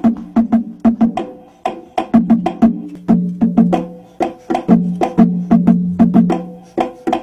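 Conga drums played by hand in a steady, repeating rhythm of about four strikes a second, the open tones ringing between slaps.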